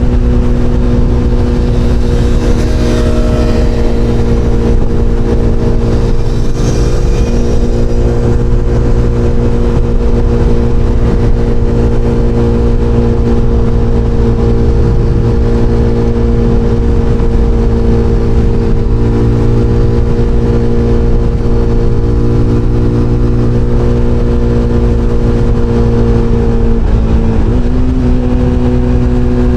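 SBM 250 S motorcycle engine running at steady high revs while cruising, its note holding one even pitch. Near the end the pitch dips briefly and comes back up.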